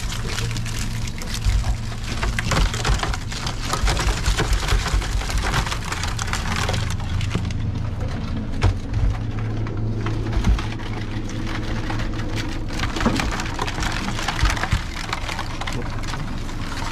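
Seawater pouring and dripping off a freshly hauled wire-mesh crab pot onto the boat deck, with scattered knocks and rattles as the pot is handled over a plastic basket. A steady low hum runs underneath.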